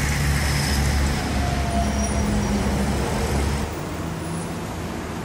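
Motor vehicle engine and road noise: a steady low rumble with hiss that drops away about three and a half seconds in.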